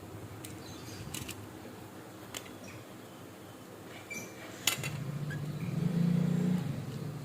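A few light clicks and taps, then a steady low engine-like hum starts about five seconds in and swells briefly before settling.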